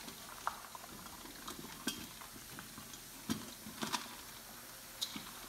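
A litter of five-week-old Labrador puppies eating dry kibble from a stainless steel bowl: steady crackly crunching and chewing, with scattered sharper clicks of kibble and noses against the metal bowl.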